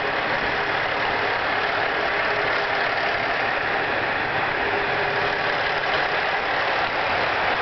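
Aizu Railway AT-500 series diesel railcar's engine running steadily.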